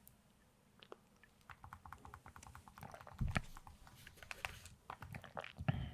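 Computer keyboard being typed on in short, irregular clicks, with a low thump about three seconds in and another near the end.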